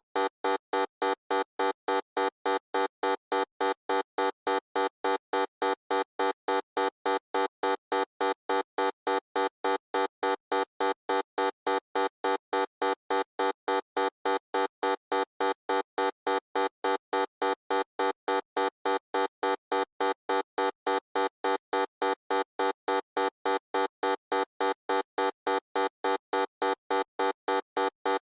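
Loud electronic buzzer beeping over and over, about three short beeps a second, each a harsh, buzzy tone.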